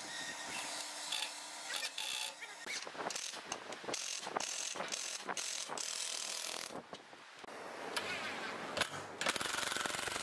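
Cordless drill driving screws into wood: short runs of motor whir with quick ratcheting clicks, then a steadier run near the end.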